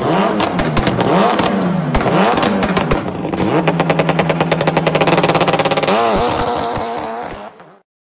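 A vehicle engine revving in repeated blips, its pitch rising and falling several times. It is then held at a steady high pitch with a fast stutter, gives one more blip and fades out near the end.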